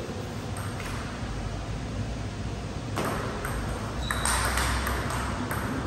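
Table tennis ball clicking off paddles and the table in a rally. The hits are sparse at first, then come about two a second from about halfway through.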